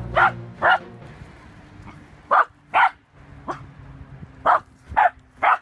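Hungarian Pumi barking at sheep across a field: about eight short, sharp barks, mostly in quick pairs.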